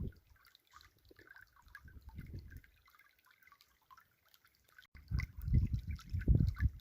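River water trickling and dripping in small, scattered splashes. Irregular bursts of low rumble come in near the end.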